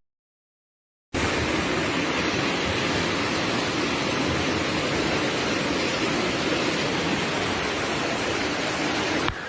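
Steady, loud rush of fast-flowing floodwater, starting abruptly after about a second of silence and cutting off just before the end.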